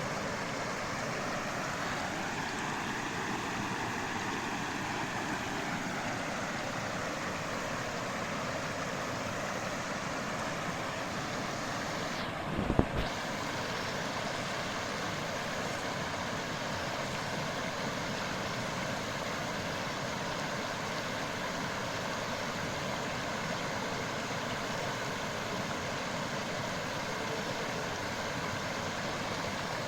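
Steady rush of a flowing stream, with one brief low thump about halfway through.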